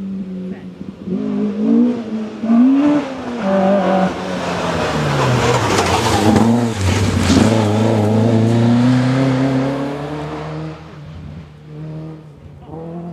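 Rally car coming through the stage: the engine revs up and down several times on the approach, is loudest as the car passes, its note dropping and then climbing again as it pulls away, and fades near the end.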